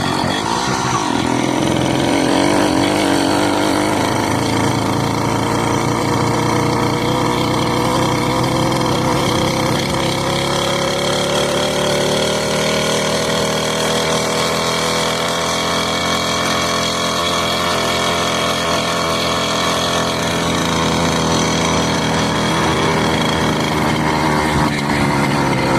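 Motorcycle engine running at steady high revs, its pitch climbing slowly through the middle and easing back down near the end.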